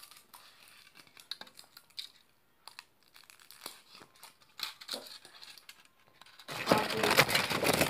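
Foil wrapper of a Kinder Surprise chocolate egg rustling and crackling in small bursts as it is peeled off by hand. Near the end, a loud spell of crinkling close to the microphone as the foil is crumpled.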